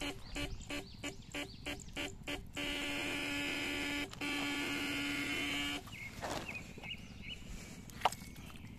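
Battery-powered eel electroshocker buzzing with a steady pitched hum. It is keyed in about eight quick pulses, then held on in two long bursts, and it cuts off about six seconds in. After that come soft splashes and scrapes of a hand in the wet paddy mud, with one sharp click.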